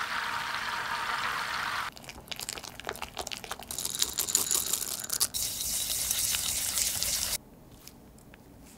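Butter sizzling and foaming as it browns in a saucepan for about two seconds, then a run of quick light clicks and rattling as chocolate chips are tipped into financier batter, followed by a bright steady hiss that stops suddenly about seven seconds in, leaving only faint quiet.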